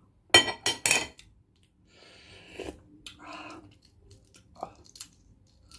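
Close-up mouth sounds of someone eating balut with vinegar: two loud, sharp wet bursts about half a second in, then quieter chewing.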